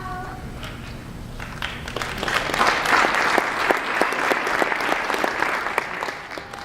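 Audience applauding: many hands clapping, swelling about two seconds in and cutting off suddenly at the end.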